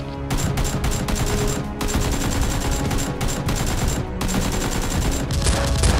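Rapid automatic gunfire sound effects, runs of shots close together, laid over background music.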